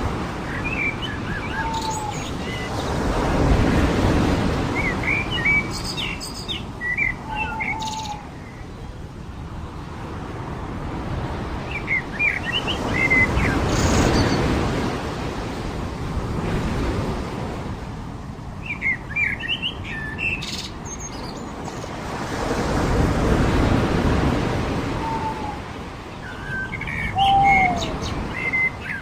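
Surf washing onto a beach, swelling and fading about every ten seconds, with birds chirping in short clusters of quick high notes between the swells and a few lower, short falling calls.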